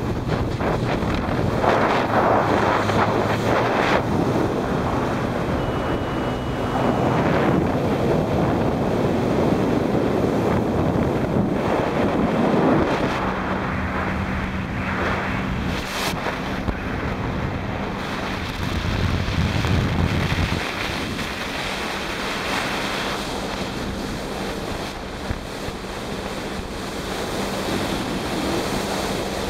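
Wind buffeting the microphone and water rushing past a Sea-Doo personal watercraft running at high speed, about 66 mph, with its engine a steady drone underneath.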